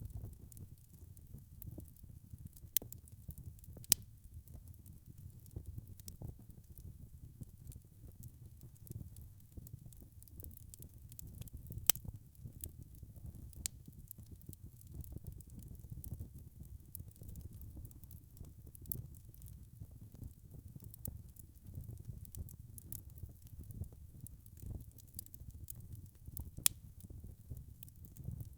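Wood fire crackling: a steady low rumble of burning logs with scattered sharp pops and snaps. The loudest pops come a few seconds in, near the middle and near the end.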